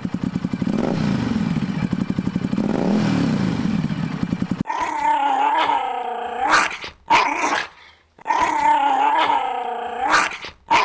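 Motorcycle engine running, its revs rising and falling twice, for about four and a half seconds. Then a small dog growls: two long growls, each followed by a short one.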